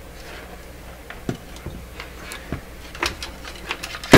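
Irregular light clicks and knocks, about half a dozen spread out at uneven intervals, over a faint steady low hum.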